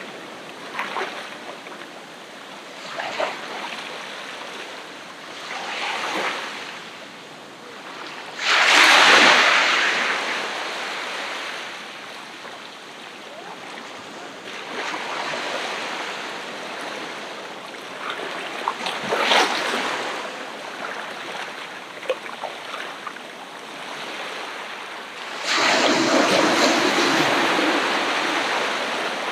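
Ocean waves breaking on a beach and washing up the sand in repeated surges. The loudest wave breaks suddenly about eight and a half seconds in, and another large one comes in a few seconds before the end and keeps washing on.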